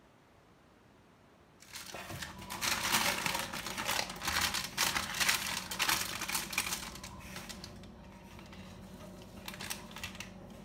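Parchment paper crinkling and crackling in quick, dense clicks as it is handled around a slab of coconut barfi, starting after a couple of seconds of quiet and tailing off, with a brief burst of crackles again near the end.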